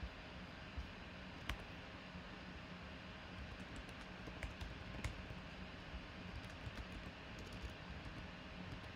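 Typing on a computer keyboard: scattered keystroke clicks, with a denser run of keys in the second half, over a steady low hum.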